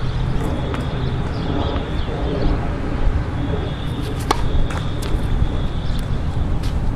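A few sharp knocks of tennis balls struck by rackets, the loudest about four seconds in, over a steady low rumble.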